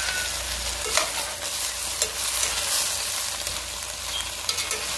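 Dried guajillo and pasilla chiles, with tomato and a green chile, sizzling and crackling as they fry in oil in a stainless steel pot, with a few sharp clicks.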